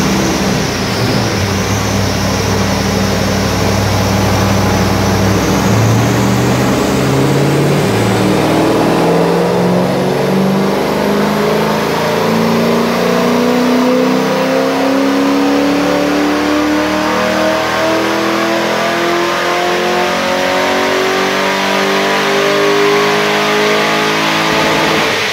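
Cammed Holden VY Commodore engine running on a chassis dyno: a few seconds at a steady note, then a long pull with the revs climbing smoothly for about twenty seconds before dropping off near the end.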